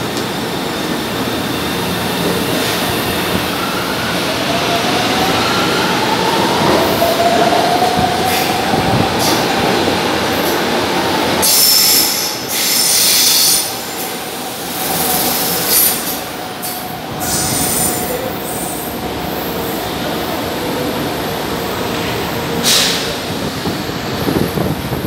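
São Paulo Metro train pulling out of the platform, its traction motors whining upward in pitch as it gathers speed over a steady rumble of wheels on rail. About halfway through the wheels screech loudly for a couple of seconds, with shorter squeals later as a second train runs along the platform.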